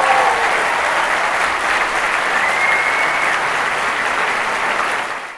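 Large conference audience applauding, fading out near the end.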